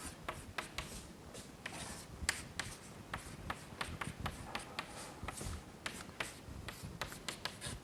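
Handwriting: a series of short, irregular scratching and tapping strokes as equations are written out by hand.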